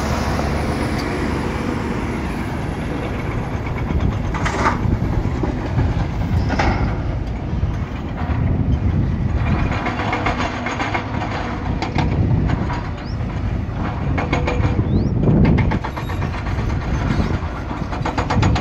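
Tracked hydraulic excavator at work: its diesel engine runs steadily, with two sharp clanks about five and seven seconds in and spells of fast metallic rattling later on.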